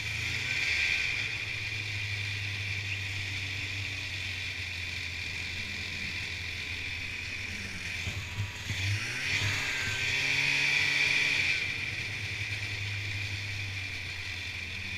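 Snowmobile engine running steadily under the rider as the sled travels along the trail, with a high whine over the engine hum. About eight seconds in the engine note dips and wavers as the sled slows. It then comes back up and gets louder for a couple of seconds before settling to a steady run again.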